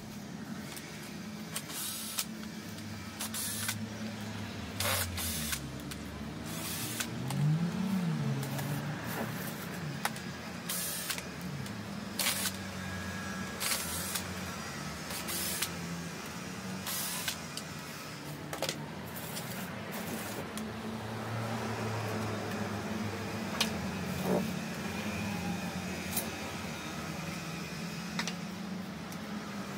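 A low motor-like hum that wavers up and down in pitch, with scattered sharp clicks and knocks throughout.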